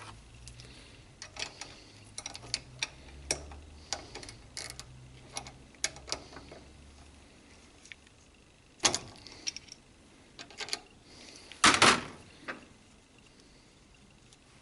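Hand tools working on a motorcycle fork leg's damper bolt and nut, with scattered metallic clicks and light clinks. Two louder knocks come about nine and twelve seconds in.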